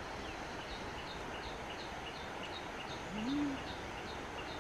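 A small bird chirping rapidly and evenly, about three short high notes a second, over steady background noise. About three seconds in, a single low call rises in pitch and then levels off, the loudest sound.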